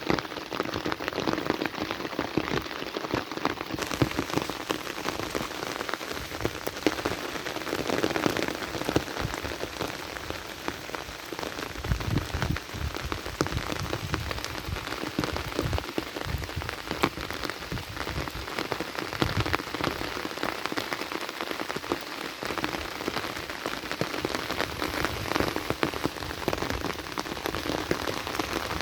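Heavy rain falling steadily, a dense patter of drops hitting a surface.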